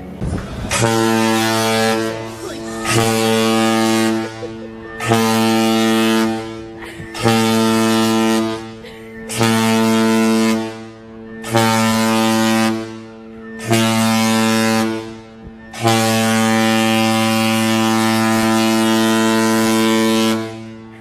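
Cruise ship's horn sounding the general emergency alarm: seven short deep blasts followed by one long blast, the signal that calls passengers to their muster stations.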